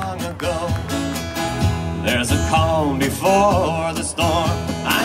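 Live folk band playing: a man singing over a strummed acoustic guitar, with accordion, electric bass and congas.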